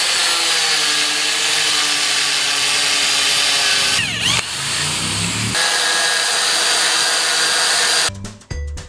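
Angle grinder cutting through a metal cross member: a loud, steady grinding screech. About four seconds in it stops, an electric drill runs briefly into the steel channel, then loud cutting starts again. Background music comes in near the end.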